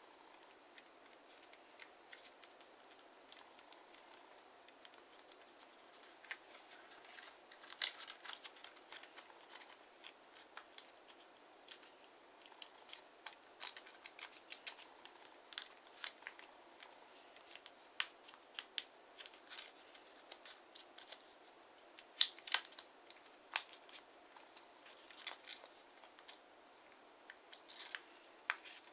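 A sheet of TANT origami paper being folded and creased by hand, giving scattered faint crinkles and sharp paper snaps. Two louder snaps come about a quarter of the way in and about three quarters of the way through.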